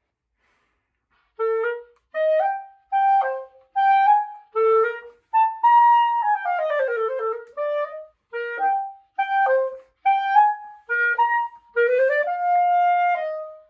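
Pereira 3D Blackwood B-flat clarinet, a clarinet of 3D-printed wood, played solo: a melodic passage of short separate notes and phrases with a quick descending run in the middle, ending on a long held note. The playing starts after about a second and a half of silence.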